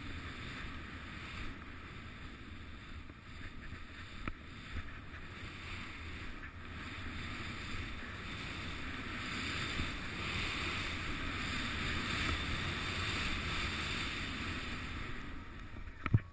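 Steady rushing noise of skiing fast through deep powder: wind buffeting the helmet camera's microphone over the hiss of skis through the snow. A sharp knock sounds near the end.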